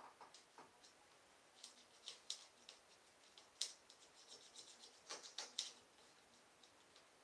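Faint, short scratchy strokes of a paintbrush working paint onto a paint-by-number canvas. They come in small clusters, around two seconds in and again around five seconds in.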